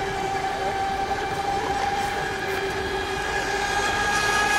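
Radio-controlled racing boat's motor running at full speed, a steady high-pitched whine with a hiss of spray, growing louder near the end.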